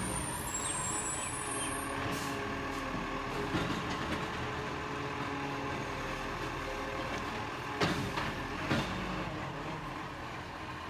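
Rubbish truck engine running with a steady drone, with two short knocks about eight and nine seconds in.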